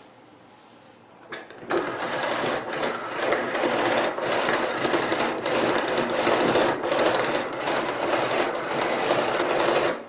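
Power cord being pulled out of a canister vacuum cleaner's cord-rewind reel: a steady rubbing whir of cord and spinning reel that starts a couple of seconds in and stops abruptly near the end.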